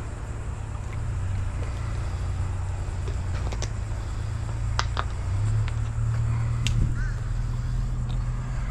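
A vehicle engine running with a steady low hum, with a few sharp clicks and taps about halfway through.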